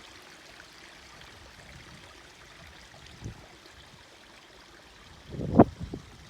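Forest stream running faintly and steadily. About a second before the end, a much louder low rumble breaks in, with a sharp knock.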